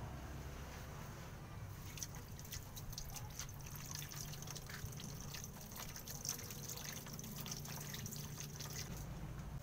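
Water running from a garden hose into a plastic bucket, with a steady trickle and many small drips and splashes.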